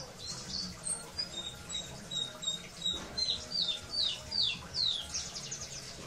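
Caged pleci (white-eye) chirping: a few thin, high notes, then a quick run of about five down-slurred chirps in the second half.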